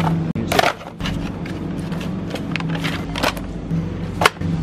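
Groceries being put into a plastic shopping basket: packages and cartons knocking and rustling against the plastic, with three sharp knocks, over a steady low hum.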